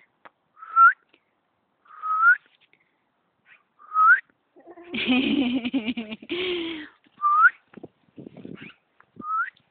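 A short whistled call, each one sweeping upward, repeated five times about every one to three seconds to call a bird. About five seconds in, a longer, lower voiced sound runs for roughly two seconds.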